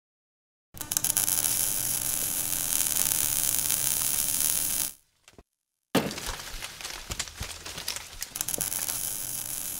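Logo-animation sound effects: a steady hiss over a low hum that cuts off about halfway, then after a short gap a sharp hit followed by crackling with scattered clicks.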